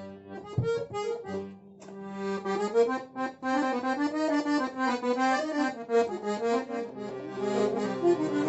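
Accordion being test-played after a repair: a melody of short notes over held chords, with a brief break near the start and lower bass notes joining near the end.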